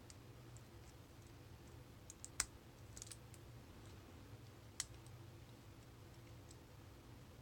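Faint metallic ticks of a lock pick and tension wrench working the pin tumblers of a brass Craftsman padlock, with two sharper clicks, one about two and a half seconds in and one just before five seconds.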